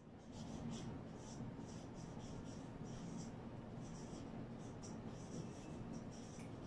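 Whiteboard marker writing on a whiteboard: faint, short squeaky strokes in quick irregular succession.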